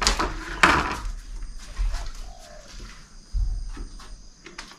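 A plastic drink bottle knocking twice on a wooden deck in the first second, then a bird calling briefly in the background.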